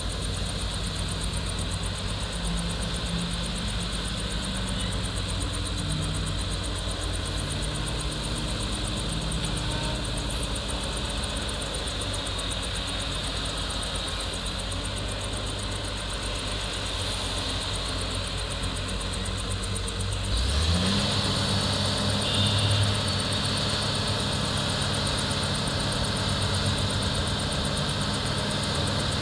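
Heavy diesel engines of an excavator and a dump truck running steadily. About two-thirds of the way through, one engine revs up, rising in pitch, and runs louder from then on.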